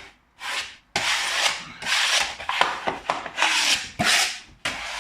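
Lining paper rubbed and pressed against the wall around a switch fitting in a series of rubbing strokes, each under a second long.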